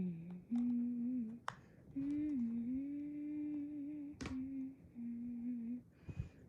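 A person humming a slow tune in a series of held notes, with a couple of small clicks from handling.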